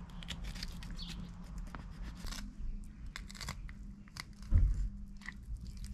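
Knife cutting along the backbone and rib bones of a flathead catfish to lift the fillet, a run of small irregular clicks as the blade works through flesh and over bone. A dull thump about four and a half seconds in.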